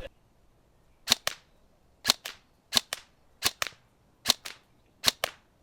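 Tokyo Marui Next Gen Recoil Shock electric airsoft gun firing single shots, six in all at a steady pace of a little over one a second, starting about a second in. Each shot is followed a moment later by a second, fainter click.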